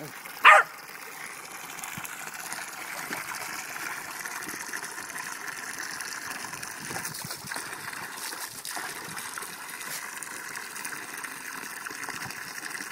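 A dog barks once about half a second in. After that comes the steady splashing of water pouring from a garden hose into a plastic paddling pool.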